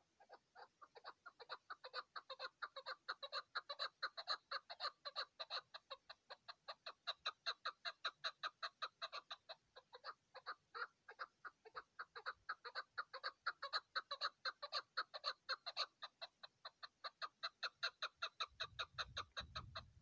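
Chukar partridge calling: a long, fast run of clucking notes, about four a second, swelling and fading in loudness. There is a low rumble near the end.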